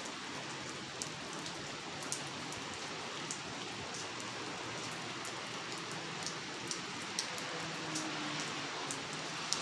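Steady rain falling, with scattered sharper drops ticking close by.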